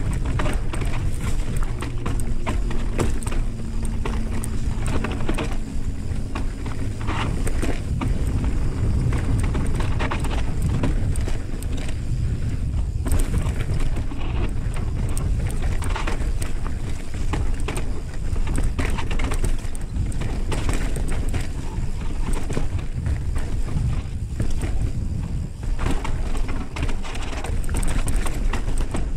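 Wind buffeting the microphone on a mountain bike as it rides down a dry, rocky dirt trail, with the tyres crunching and the bike rattling and clattering over rocks and ruts.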